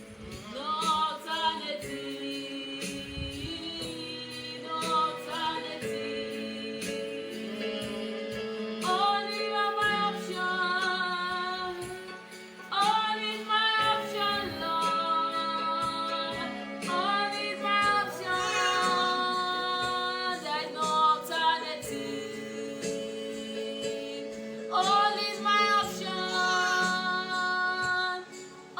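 Woman singing a gospel worship song in phrases with a wavering, vibrato-laden pitch, over sustained held accompaniment chords.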